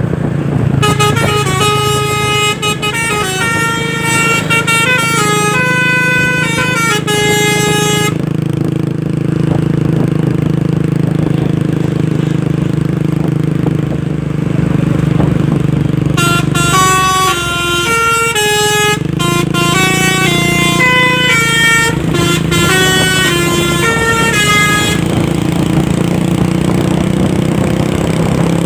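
Truck telolet basuri musical air horn playing a tune note by note, over a truck engine's steady low drone. The melody runs from about a second in to about eight seconds, stops, then plays again from about sixteen to twenty-five seconds, with only the engine drone in between.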